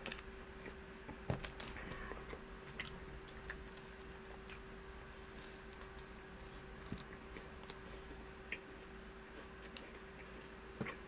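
A person chewing and biting food, with scattered faint crunches and clicks, over a steady faint hum.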